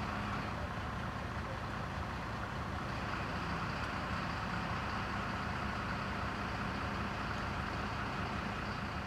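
Mobile crane's engine running steadily, with a low hum that stops about half a second in.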